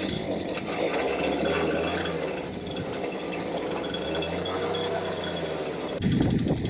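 Handheld leaf blower running steadily, air rushing from its nozzle over the roof membrane with a high whine; the whine stops about six seconds in.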